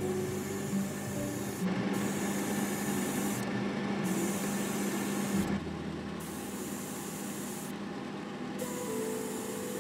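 Airbrush hissing as it sprays paint onto a small plastic model part, the hiss briefly dropping out every couple of seconds.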